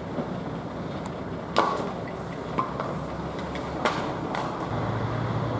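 About four sharp metal clanks and knocks from hand work on a fairground ride trailer, the first and third the loudest with a brief ring. Under them a truck engine idles with a steady low rumble.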